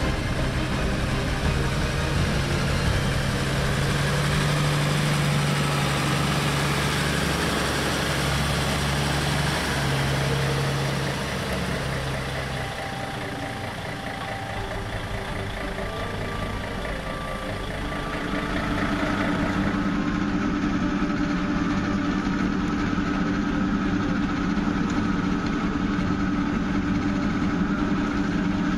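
Diesel engines of heavy road-resurfacing machinery running steadily. About 12 seconds in the low engine hum drops away, and from about 19 seconds a different, higher engine note takes over.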